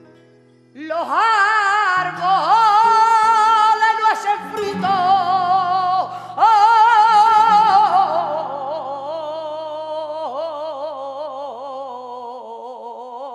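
A woman singing flamenco cante (a malagueña) with heavy vibrato and long ornamented held notes over a flamenco guitar's sustained notes. Her voice comes in about a second in and breaks off twice, and the last long phrase slowly fades.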